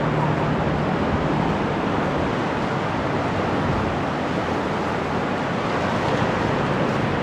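Steady rushing noise of ocean surf and wind, with a low hum that fades out about a second and a half in.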